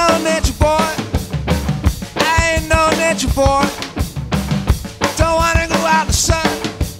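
Background music: an upbeat tune with a drum-kit beat under a melody of short notes.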